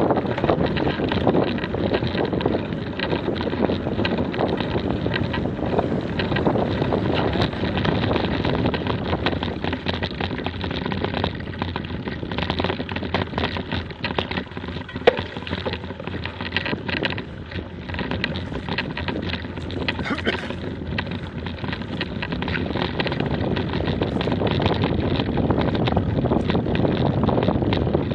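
Wind buffeting the microphone of an action camera carried on a mountain bike, mixed with the rumble of tyres and the bike's rattling over rough dirt and gravel track, with one sharp knock about halfway through.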